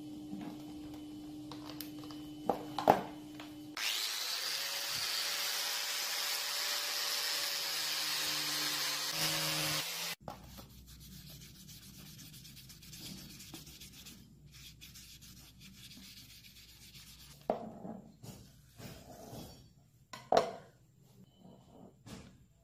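A loud, even hiss for about six seconds that cuts off suddenly, followed by a cloth rubbing over the knife's wood-and-brass handle, with a few light knocks near the end.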